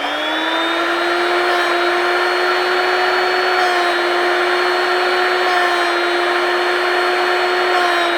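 Drill Doctor drill-bit sharpener's electric motor and grinding wheel, finishing its spin-up within the first second and then running at a steady whine with a grinding hiss as a drill bit is ground.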